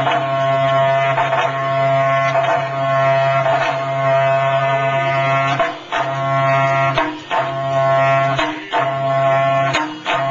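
Music: a held, reedy melody over a steady low drone, with percussion hits now and then.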